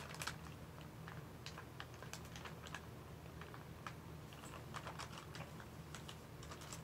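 Faint, irregular light clicks and taps from utensils and MRE food packets being handled on a table.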